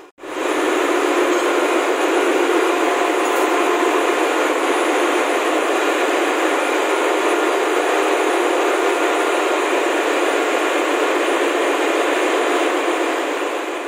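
Steady, loud engine-room machinery noise aboard a ship: an even roar with no rhythm or speech in it.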